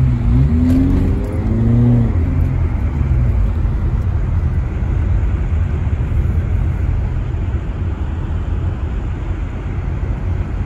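Steady low rumble of a car driving, heard from inside the cabin: engine and tyres rolling over a packed-snow and ice-covered road.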